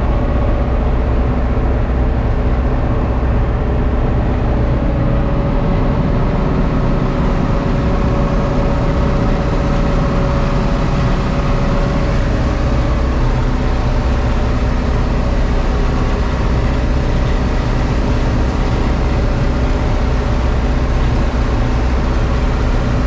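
John Deere 3300 combine running at steady speed: a constant, loud engine drone with steady tones over a heavy low rumble.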